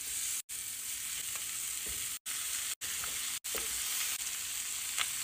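Marinated chicken drumsticks sizzling steadily in hot olive oil in a cast iron skillet as they are laid in one by one to sear. The sizzle cuts out briefly several times.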